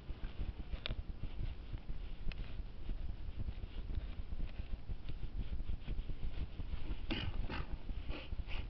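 A spade scraping and pushing loose soil back into a hole in grassy ground, then boots stamping the filled hole down in several quick thuds near the end, over a steady low rumble.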